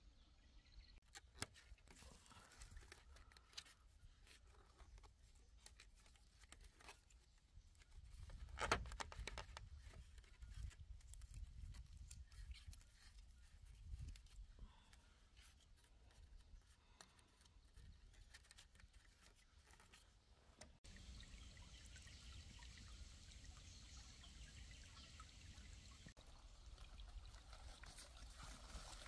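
Faint, scattered clicks and knocks of small handling sounds, the loudest about nine seconds in, over quiet outdoor background noise that changes abruptly about twenty-one seconds in.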